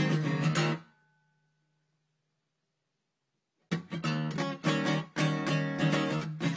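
Background music: one track fades out about a second in, then near silence for nearly three seconds, then a new track of strummed guitar music begins.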